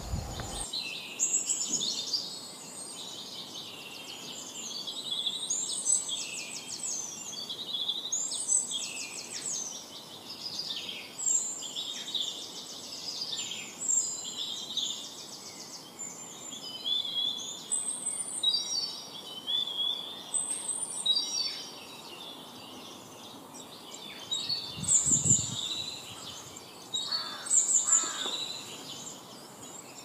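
A chorus of small songbirds singing together, many overlapping chirps, trills and quick whistled phrases with no pause. A brief low thump comes about 25 seconds in.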